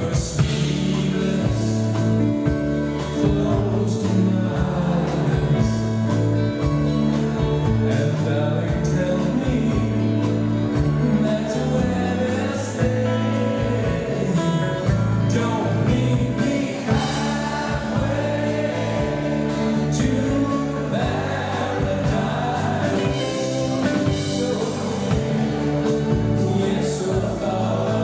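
Live rock 'n' roll band playing, a male lead singer singing over electric bass, electric guitars and drums with a regular beat.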